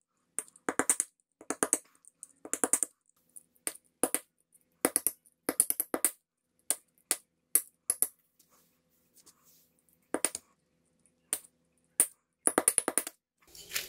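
Hammer tapping on the base of an upturned, water-soaked earthenware onggi jar to knock a drainage hole through it, played at triple speed, so the blows come as quick clusters of sharp clicks with short pauses between them.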